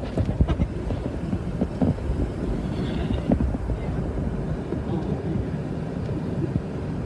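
Road and engine noise heard from inside a moving car: a steady low rumble with small scattered knocks and rattles.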